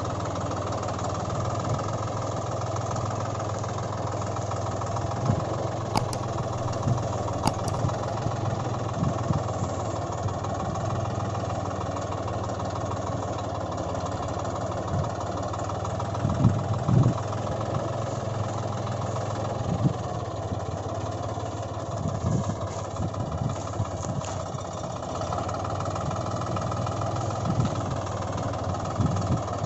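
Tractor engine running steadily at an even pace, with a few low thumps along the way.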